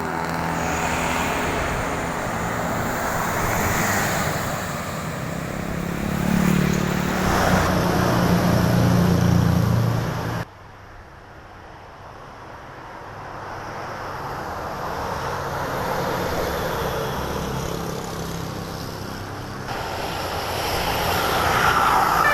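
Road traffic passing close: a heavy vehicle's engine swells to its loudest and then cuts off suddenly about ten and a half seconds in, followed by quieter passing traffic that rises and falls.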